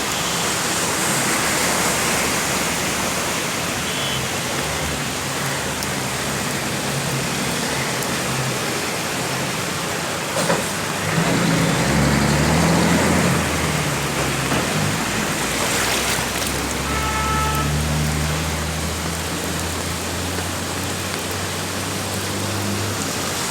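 Steady hiss of heavy rain, with a motor vehicle's engine running in from about halfway through.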